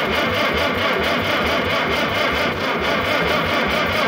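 Case DC4 tractor's four-cylinder engine being turned over by its electric starter on a shot of ether, cranking with an even chug of about four to five compression beats a second. It does not catch.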